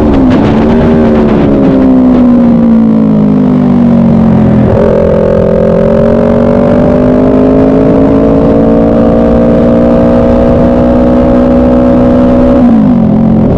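Track motorcycle engine heard from an onboard camera, with wind noise throughout. The revs fall steadily under braking, jump up sharply about halfway through at a downshift, climb slowly under acceleration, then drop at a shift near the end.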